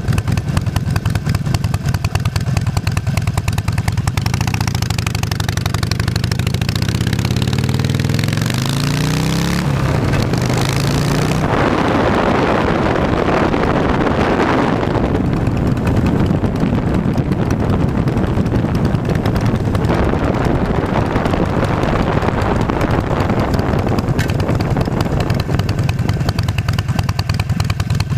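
Harley-Davidson Nightster's 1200 cc V-twin running under way, its pitch rising and falling with the throttle for the first ten seconds or so, then steadier, with wind rushing over the microphone from about eleven seconds in.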